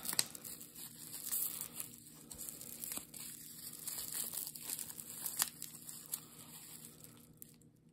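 Clear plastic wrapping crinkling and tearing as hands pull it off a small lock, with irregular sharp crackles that die away near the end.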